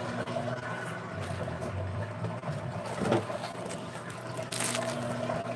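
Phone handling noise as the phone is carried and moved, with rubbing and a couple of knocks about three seconds in and near the end, over a steady low hum.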